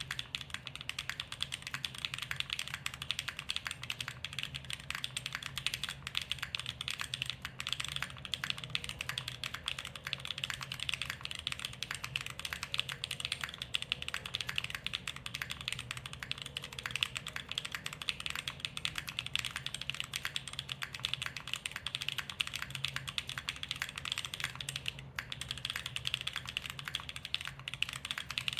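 Continuous fast typing on a QK60 r2 custom mechanical keyboard with Gateron Quinn tactile switches, a carbon fibre plate, DCS-profile Reaper keycaps and no foam: a steady stream of keystroke clicks and bottom-out clacks.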